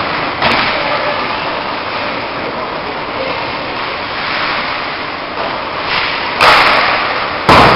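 Ice hockey play heard from the stands of a large, near-empty arena: a steady wash of skating and rink noise, with two sudden sharp knocks near the end, the second the loudest.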